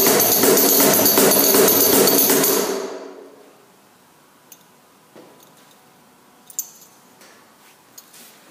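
Cajon fitted with a JinglePep brass jingle, played in a fast rhythm of slaps with bright metallic jingling, fading out about three seconds in. After it come a few faint clicks and a small metallic clink as the brass jingle is handled.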